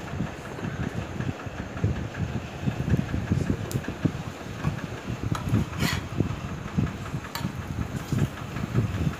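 A low, uneven rumble runs underneath, with a few short clicks and scrapes of a steel spatula against an iron tawa as it presses a chapati, the clearest about halfway through.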